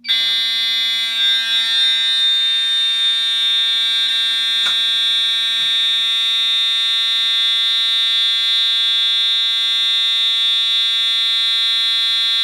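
Fire alarm sounder on continuous coding: one loud, steady alarm tone with no breaks or temporal pattern, starting abruptly. A faint low hum runs underneath.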